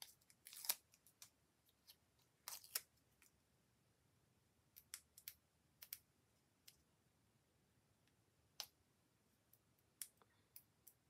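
Faint, scattered small clicks and crinkles of fingers picking at and peeling the backing paper off small adhesive pads. The two sharpest clicks come within the first three seconds.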